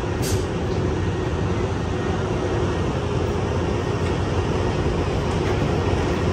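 Amtrak Capitol Corridor bi-level passenger train standing at the platform: a steady, loud hum and rumble of its idling equipment, with one brief high tick near the start.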